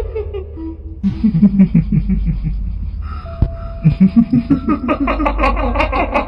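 Staged kuntilanak ghost laughter: rapid 'hihihi' cackling in pulsed runs, a lower chuckling run about a second in and a higher, faster one from about four seconds, over a steady low droning background.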